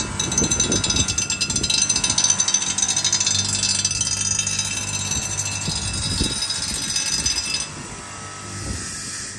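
A machine rattling rapidly with a dense stream of fast ticks, cutting off suddenly about seven and a half seconds in.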